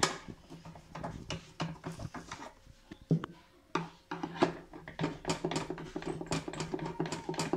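Screwdriver unscrewing screws from the metal base of a panini press: a run of small clicks and metallic scrapes, coming faster in the second half.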